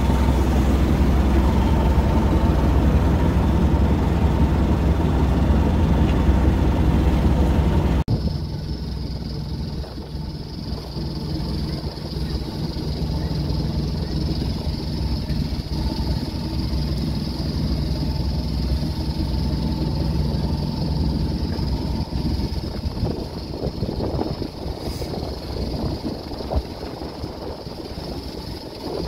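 Boat engine running under way, a steady low rumble, with wind and water noise. About eight seconds in the sound cuts to a quieter stretch of wind and choppy water over a lower engine hum.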